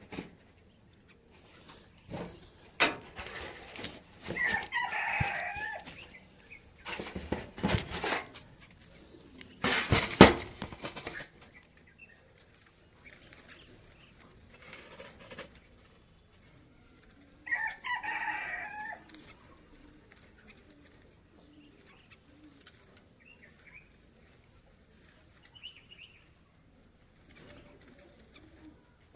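A hoopoe flapping its wings and rustling against a mist net in short bursts during the first ten seconds or so as it is untangled. A rooster crows twice in the background, about five seconds in and again near eighteen seconds.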